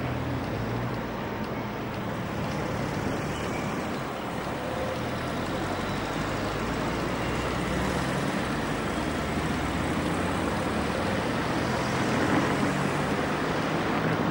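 Tatra T3 tram running along street track among city traffic, growing gradually louder as it approaches.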